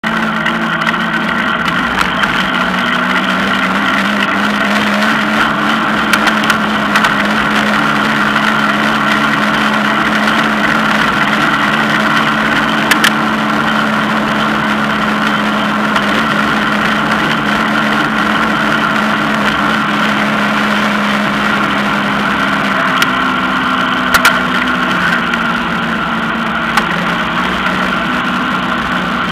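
Steady engine drone of a moving vehicle, holding nearly the same pitch throughout, with a few sharp clicks or knocks at intervals.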